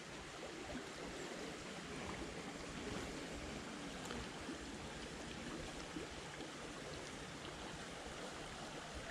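Creek water flowing, a steady, faint rush.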